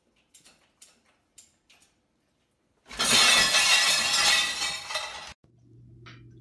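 Dishes clinking lightly in a dishwasher's lower rack as a dog noses at them, then a loud crash of plates and bowls clattering out of the rack, lasting about two and a half seconds.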